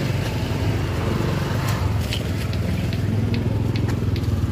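Motorcycle engine idling steadily, with scattered sharp clicks and knocks of a large knife working through tuna on a wooden chopping block.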